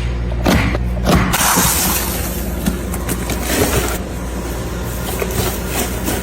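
Packaging being handled: crinkling and rustling of paper or plastic wrapping, densest in the first two seconds, then lighter handling with small clicks and taps. A steady low hum runs underneath.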